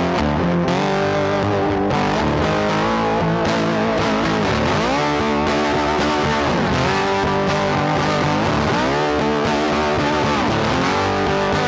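Background rock music led by a distorted electric guitar, with notes bent up and down in long glides.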